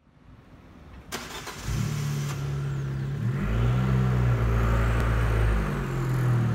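Abarth 595 Competizione's turbocharged four-cylinder engine running at low revs as the car creeps forward. It fades in from silence, with a click about a second in, and its note drops deeper and stronger about three and a half seconds in.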